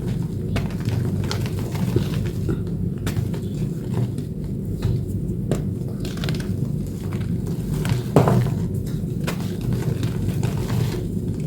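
Dried blue chalk reform made with corn starch paste being crushed and crumbled, scattered crisp crackles and crunches over a steady low rumble, with the loudest crunch about eight seconds in.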